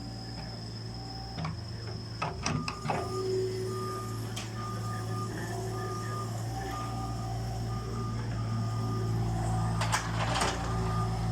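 Cat 303 ECR mini excavator's diesel engine running steadily, with a warning alarm beeping about once a second from about four seconds in. A few sharp knocks come about two to three seconds in and again near the end.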